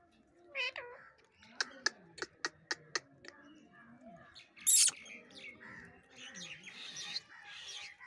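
Indian ringneck parakeet giving a short squeaky gliding call, then about seven sharp taps of its beak pecking on the concrete floor. A loud, harsh, short burst comes near the middle, followed by soft scratchy chattering.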